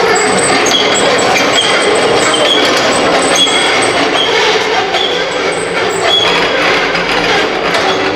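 Heavy steel workbench rolled on a wheeled dolly across a concrete floor: a loud, steady rumble of the wheels, with short high squeaks recurring about once a second.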